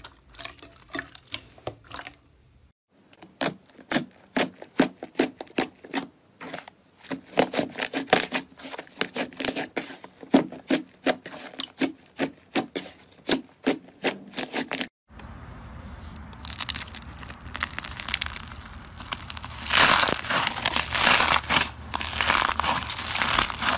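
Hands kneading and squishing slime, a long run of sharp sticky pops and clicks. After a sudden cut about fifteen seconds in, a denser crackling of glittery slime pressed in a plastic bowl, over a low hum.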